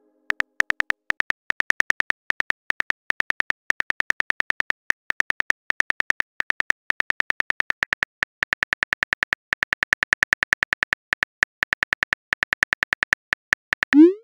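Phone keyboard typing clicks from a chat app's sound effect: rapid, fairly even taps at about seven a second as a message is typed. Near the end a short rising whoosh sounds as the message is sent.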